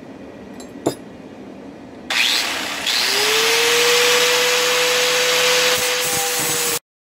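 Handheld angle grinder switched on about two seconds in: its motor spins up, with a short rising whine, to a steady high whine over loud hissing noise, then cuts off abruptly near the end.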